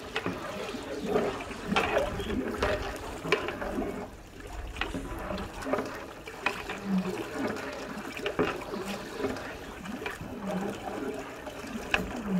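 Long metal ladle stirring watery broth in a large aluminium cooking pot: liquid sloshing and swirling, with the ladle knocking and scraping against the pot now and then, about once a second.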